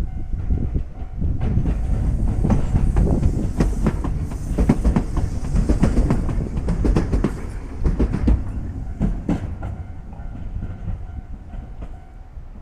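Hiroden (Hiroshima Electric Railway) tram passing on the Miyajima Line, its wheels rumbling and clicking over the rail joints. It builds up about a second and a half in, is loudest in the middle, and fades out near the end.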